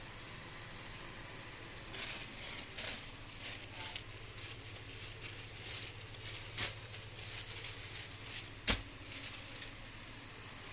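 Sarees being handled and shifted on a table: light rustling and crackling of cloth from about two seconds in, with a sharp tap near the end, over a steady low hum.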